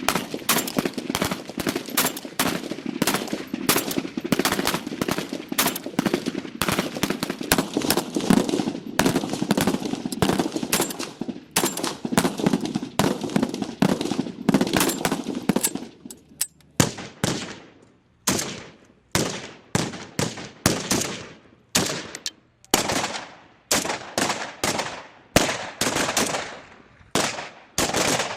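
Gunfire: a long stretch of rapid, overlapping shots, then separate single shots about one to two a second, each with a short echoing tail.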